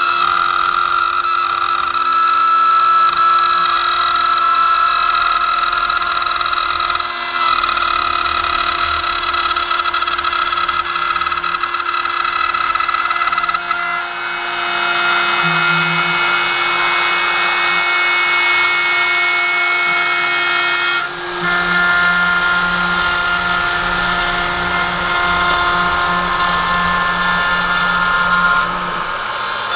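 Router spindle on a CNC machine running and cutting a groove in wood, a steady whine with several tones. The tones shift pitch about halfway through and again a few seconds later as the machine moves. This pass was meant to run above the surface, so the cutting is a sign of the machine losing steps.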